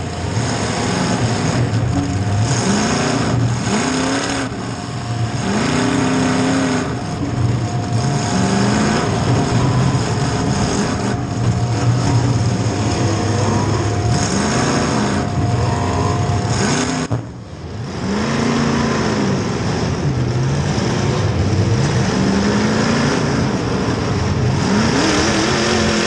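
Demolition derby car's V8 engine, heard from inside the stripped-out cabin, revving up and falling back again and again, about once every one to two seconds, with a steady high whine over it that stops about seventeen seconds in.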